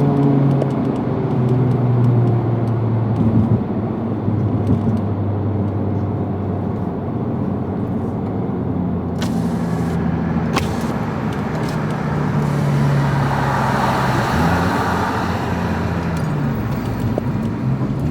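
Turbocharged 2.0-litre four-cylinder engine of a Honda/Acura Type R/Type S fitted with an aftermarket recirculating bypass valve, running with its revs rising and falling. There are two sharp clicks about nine and ten seconds in, and a rushing hiss a little later.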